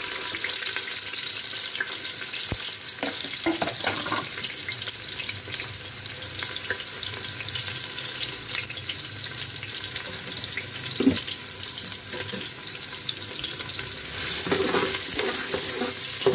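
Chopped onion and whole garlic cloves sizzling steadily in hot oil in a pressure cooker. Near the end it gets louder as a spatula stirs them, knocking against the pot.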